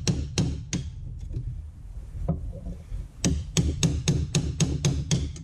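Hammer tapping on a pry-bar screwdriver wedged against a C5 Corvette's rear CV axle, to separate the axle. There are a few sharp taps, a pause, then an even run of about three taps a second.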